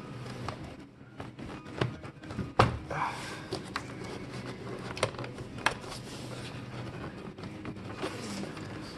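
Chevy Volt's plastic air intake assembly being worked loose by hand from its guide pins and rubber grommet: scattered clunks and clicks of hard plastic, with a low steady hum underneath.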